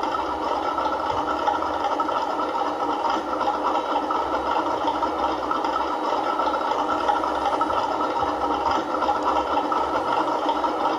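Simulated tank engine idling from the Elmod sound unit's small speaker inside a 1/16 RC Tiger II: a steady, rattly running noise with little deep bass.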